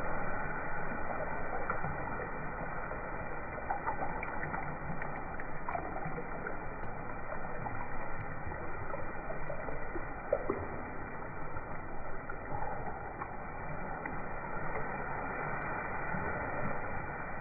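Thin, watery tomato gravy with peas and paneer being stirred in a steel kadai: liquid sloshing with scattered light clicks of the spoon against the pan, over a steady hiss.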